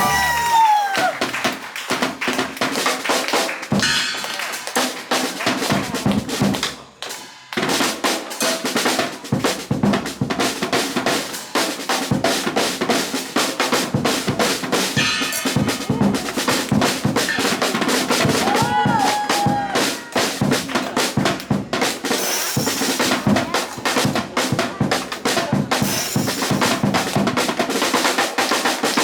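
Jazz drum kit played busily on snare, bass drum and rims, with fast rolls and a brief break about seven seconds in.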